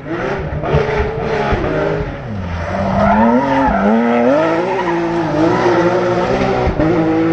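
Porsche 911 rally car taking a tight junction at stage speed: the engine note jumps several times as it brakes and changes down in the first two seconds, falls low at the corner, then climbs and wavers as the driver gets back on the throttle and pulls away, holding a steadier note near the end.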